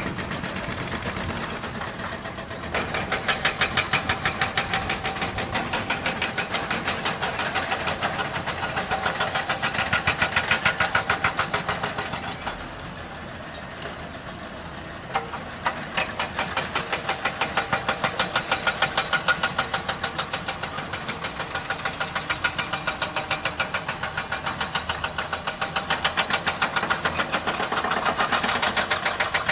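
Heavy diesel truck engine running with a fast, even clatter that swells and fades. It drops back for a couple of seconds around the middle, then comes back suddenly.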